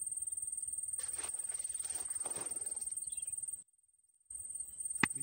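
Insects trilling, one high, steady, fast-pulsing note, with some rustling about a second in. The sound cuts off suddenly for under a second, and a single sharp click comes near the end.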